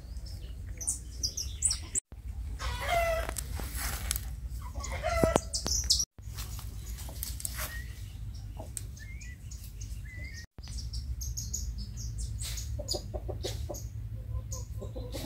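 Chickens clucking, with small birds chirping in short bursts. The sound cuts out briefly three times.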